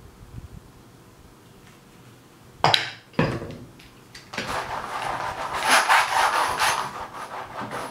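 Two sharp knocks about three seconds in, then a small toy train engine pushed back and forth across a paint-covered canvas on a table, its wheels rattling and scraping in a continuous uneven rub.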